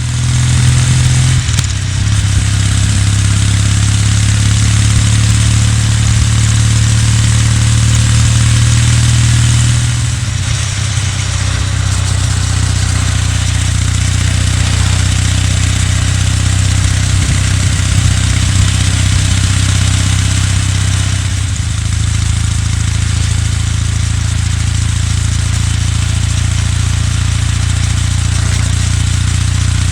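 Kawasaki W800's air-cooled parallel-twin engine running steadily under a hiss of wind and road noise. Its note changes about ten seconds in and again a little after twenty seconds.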